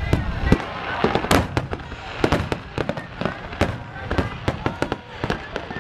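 Aerial firework shells bursting in a rapid barrage, many sharp bangs in quick, uneven succession, with crowd voices underneath.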